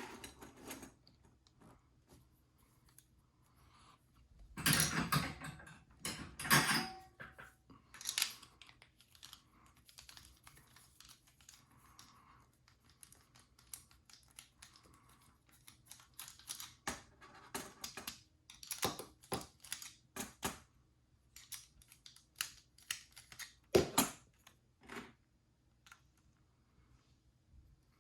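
Small metal clicks and taps of an ABUS 72/40 padlock being taken apart by hand, its parts handled over a tray. Longer scraping sounds come about five and seven seconds in, and a sharp click near the end is the loudest.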